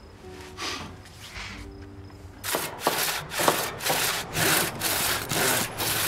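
Rhythmic rasping strokes, about three a second, begin about two and a half seconds in. Before them, soft background music plays with a few held notes.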